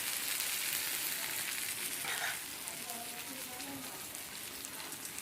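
Sauce sizzling on a hot sizzler tray under a brownie and ice cream: a steady crackling hiss that eases slightly a little over two seconds in.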